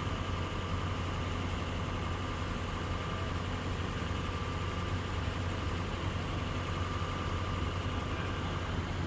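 Fire truck's diesel engine idling steadily: a low hum with a faint, even whine above it.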